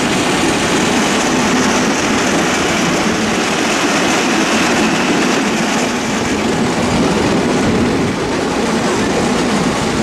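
Home-built rail trolley's steel wheels rolling and clattering along old narrow-gauge track, a steady loud rumble and rattle heard from on board.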